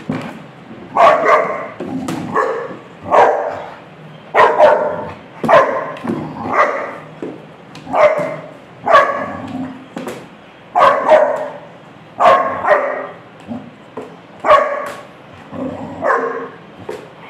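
Rottweiler puppy barking repeatedly at an unfamiliar rolled object propped on a chair, single and paired barks about a second apart.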